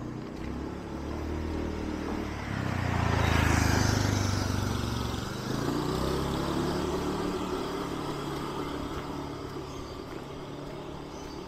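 A motor vehicle passes close by, loudest about three and a half seconds in, then a second engine runs on and slowly fades away.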